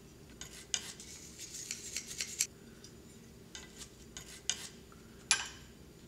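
Short scrapes and light metal clicks from a stainless steel wire brush scrubbing soot off a mobile furnace's metal diffuser plate, and from the plate and its holder being handled, in scattered bursts over a faint steady hum.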